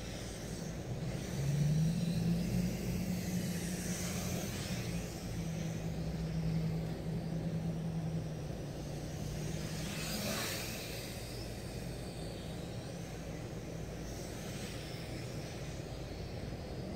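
MJX X600 hexacopter's motors and propellers humming in flight. A steady hum sets in about a second and a half in and holds until about ten seconds, with louder swells near four and ten seconds.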